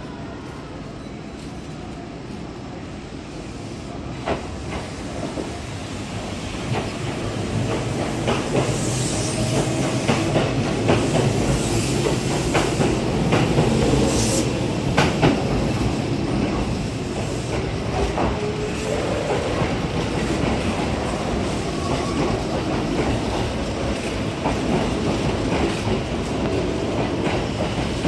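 Kintetsu electric train running past close by. It grows louder from about four seconds in, with wheels clacking over rail joints through the middle.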